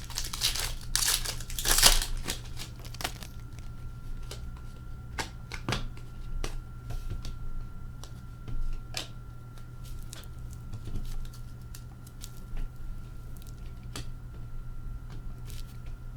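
Hockey card pack wrappers being torn open and crinkled, loudest in the first few seconds, then scattered soft taps and clicks as the cards are handled and sorted.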